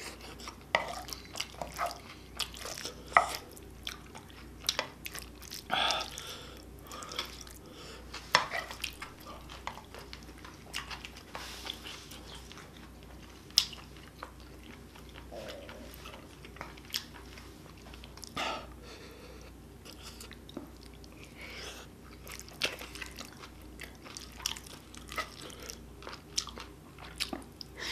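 A person chewing mouthfuls of spicy stir-fried octopus (nakji bokkeum), with many scattered sharp clicks throughout.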